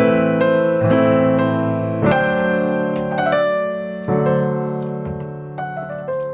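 Background music: soft piano notes and chords played at a gentle pace, each note ringing and fading.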